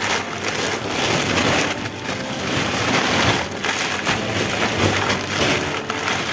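Plastic packaging crinkling and rustling close to the microphone as it is handled and turned over, in irregular surges.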